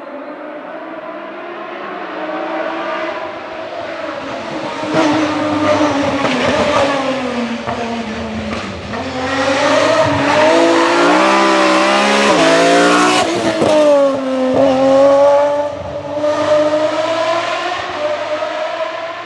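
A BMW rally car's engine driven hard and drawing closer, its pitch falling and rising as it brakes and accelerates. In the loudest middle stretch it climbs through several quick gear changes that step the pitch. Near the end the pitch drops sharply, climbs again and fades.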